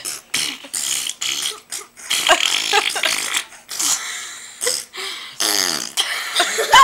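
Children making fart noises with their mouths and cheeks: a string of many short, sputtering blows, some with a pitch that bends up or down.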